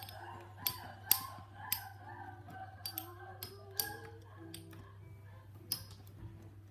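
Two Beyblade spinning tops clacking against each other as they spin in a plastic stadium: irregular sharp clicks, roughly one a second, over a steady low hum.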